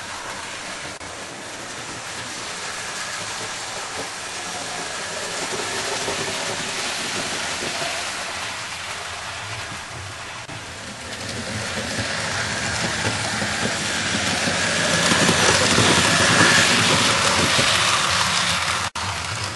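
00 gauge model train running along the layout's track, a steady rushing rattle of wheels on rail that grows louder toward the end as the train comes closer, then drops out abruptly for an instant.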